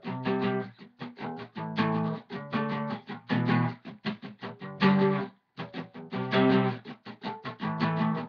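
Guitar strumming chords in a steady rhythm.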